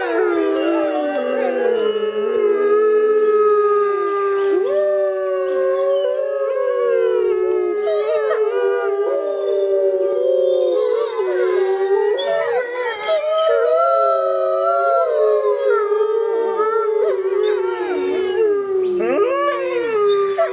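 Several canids howling together: long, overlapping howls that hold and glide in pitch, one voice steady underneath while others rise and fall over it.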